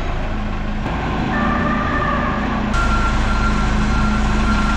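Telehandler's diesel engine running under load as it moves a truck chassis, with a steady high tone over the engine note. The sound gets louder and hissier about three seconds in.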